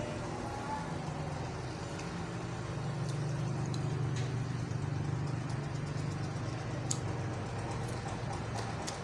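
Chewing and small sharp clicks of eating a meal by hand, with a spoon, off a banana leaf, over a steady low hum that gets a little louder in the middle.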